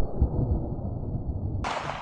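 Booming, rumbling tail of a .45 ACP gunshot dying away, with a sudden hiss about one and a half seconds in.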